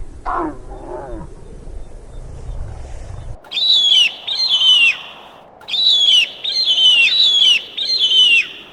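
A big cat growls low in the first second. After an abrupt cut, a bird of prey screams: six loud, high, downward-slurring screeches, two and then four after a short pause.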